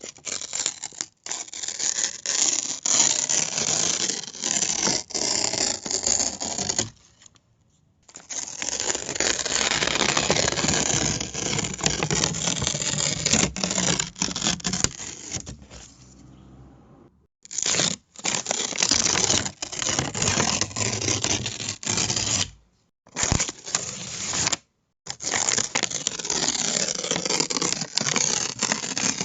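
Paper being torn in long, crackly rips with many small snaps, pausing briefly three or four times between tears.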